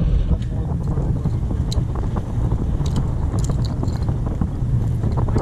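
Wind buffeting the camera's microphone, an uneven low rumble.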